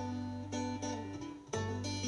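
Background music led by plucked acoustic guitar, with notes picked in a regular rhythm over a held bass that drops out briefly near the end.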